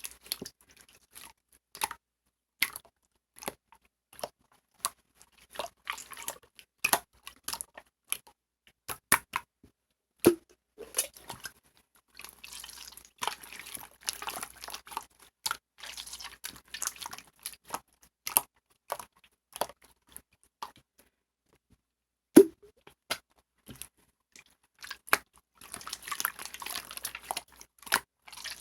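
Mixed slime being squeezed and poked by hand, making sharp wet popping clicks. The pops come in loose runs that thicken into crackly squishing in places.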